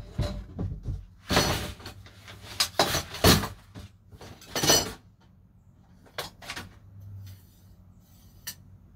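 Objects being handled and moved about while sorting in a small shed: irregular knocks, clatters and rustling, busiest in the first five seconds, then only a few scattered clicks.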